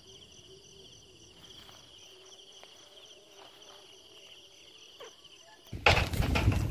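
Insects trilling steadily in a finely pulsing high chorus over quiet outdoor background. Near the end, a loud, rapid run of knocks and noise cuts in suddenly.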